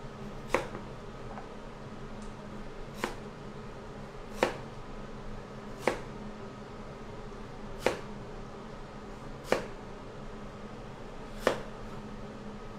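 Knife chopping down onto a cutting board: seven single sharp chops, spaced about one and a half to two seconds apart, over a steady low hum.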